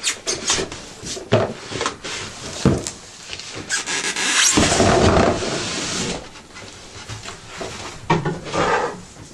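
Styrofoam packing blocks being pulled from a cardboard box, squeaking and rubbing, with a run of knocks and clicks and a longer scraping rub about halfway through.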